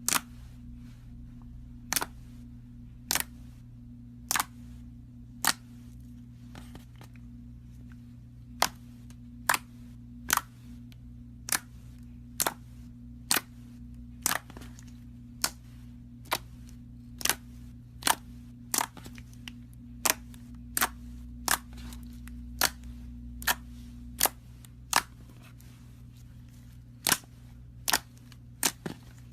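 A long series of sharp, short clicks, roughly one a second at first and coming faster and sometimes in pairs later on, over a steady low hum.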